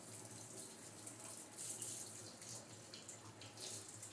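Faint steady hiss over a low hum, with a few light clicks of a fork against a plate.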